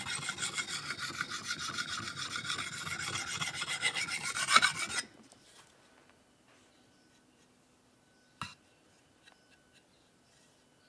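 Steel knife blade stroked rapidly back and forth across a fine diamond sharpening hone, a steady rhythmic scraping rasp: the final polishing strokes of the edge. It stops suddenly about five seconds in, leaving near quiet broken by a single click.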